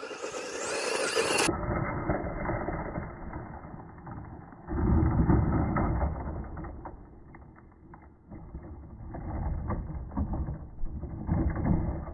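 Traxxas Sledge Hammer VXL radio-controlled truck driving on dirt under throttle, surging hard about five seconds in and again near the end.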